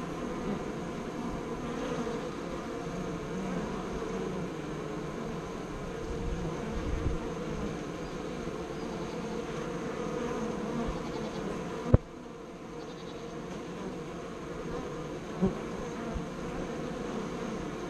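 Honeybees buzzing at a hive entrance, a steady hum of many bees flying close by. A sharp click about two-thirds of the way through, and a smaller tap a few seconds later.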